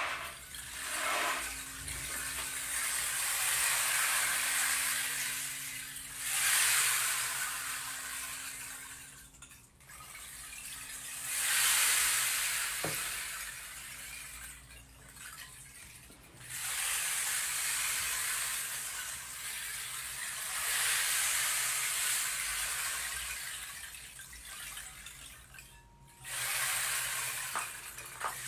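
Water rushing or pouring in surges a few seconds long, with brief pauses between them.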